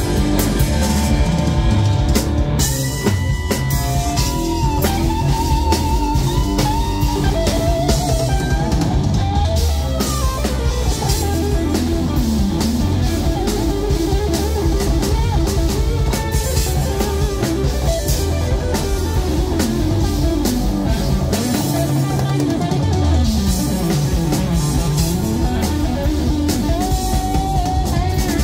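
Live rock band playing an instrumental passage: an electric guitar lead with bent and sliding notes over bass guitar and a pounding drum kit.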